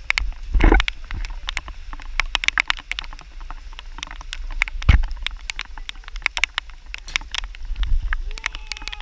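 Raindrops tapping on the camera housing in quick, irregular clicks over a low wind rumble, with two heavier thumps, about a second in and about halfway. A voice comes in near the end.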